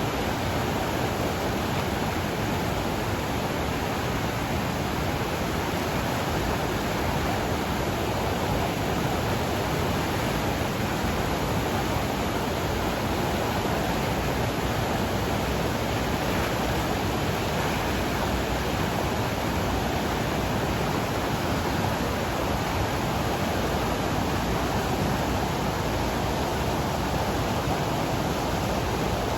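Mountain river swollen with snowmelt runoff, its rushing water making a steady, unbroken roar.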